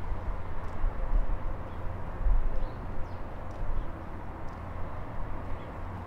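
Outdoor background with an uneven low rumble and a few faint, short, high bird chirps; the siren itself is not sounding.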